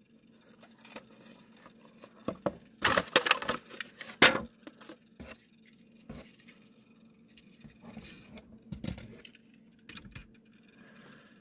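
Hands opening a small cardboard toy-car box and taking out a die-cast model car: scratching and scraping of cardboard and packaging, loudest in a cluster of scrapes and clicks about three to four seconds in, then scattered light clicks as the car is handled and set down.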